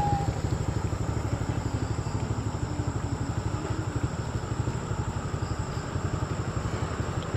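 A small engine idling steadily with a rapid, even low pulse.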